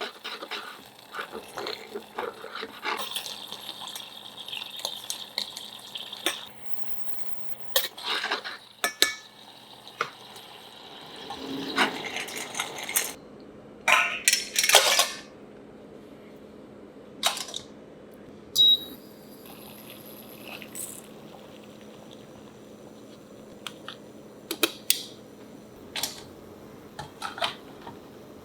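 Clams cooking in white wine over high heat, bubbling and hissing for the first several seconds, then scattered clinks and knocks of shells, utensils and dishes against a pot and a bowl, loudest around the middle.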